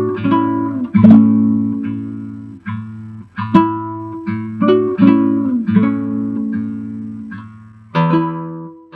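Acoustic guitar playing a plucked instrumental introduction: picked notes and chords over ringing bass notes. A final chord is struck about eight seconds in and left to ring out.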